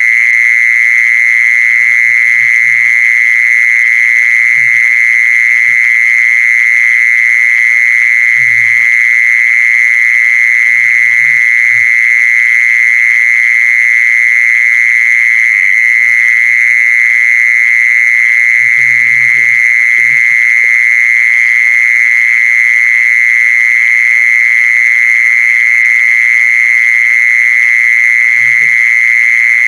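A continuous, high-pitched trilling call held at one pitch without a break: the recorded calling sound played to lure a female khmol. A few faint, short low sounds come and go underneath.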